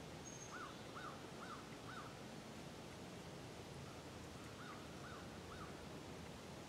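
A bird calling faintly in two runs of short arched notes, four about half a second apart and then, after a pause, three more, over a steady low hiss.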